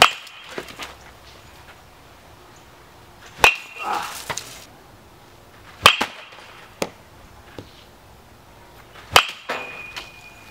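A baseball bat hitting balls four times, about every three seconds, each crack followed by a short ringing tone from the bat, with softer knocks and clicks as the balls strike the net and ground.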